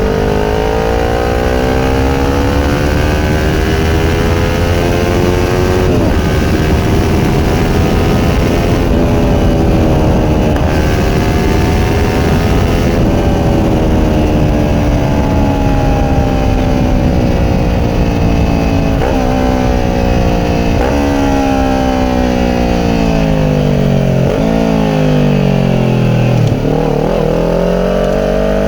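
Kawasaki Ninja 400 parallel-twin engine through a Yoshimura slip-on exhaust, riding at speed. The engine note rises as it pulls, with brief breaks at gear changes, then falls steadily for a few seconds as the bike slows, and climbs again near the end. Wind rush runs underneath.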